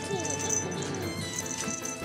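Background music: held tones with a few short notes that swoop up and down in pitch.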